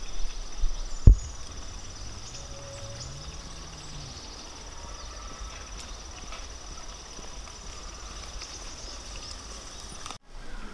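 Crickets or similar insects trilling steadily in a high, fine chirr, with a single sharp thump about a second in.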